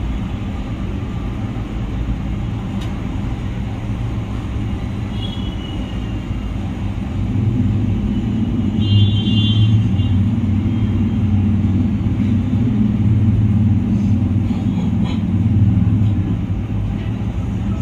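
A steady low rumble that grows louder about seven seconds in and eases off near the end, with two faint short high tones partway through.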